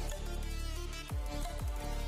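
Background electronic music with a deep sustained bass; kick-drum beats that drop in pitch come back about a second in, two a second.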